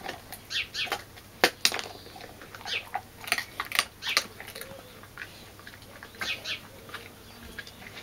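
Dutch Shepherd dog eating bread off the ground: irregular crunching and chewing, thickest in the first half, with a few more chews about six seconds in.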